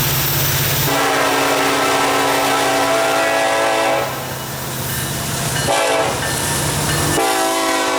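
Diesel locomotive air horn on an approaching Norfolk Southern freight train: a long blast, a short one, then another long blast, the pattern of a grade crossing signal. Before the horn, the low drone of the locomotive's diesel engine.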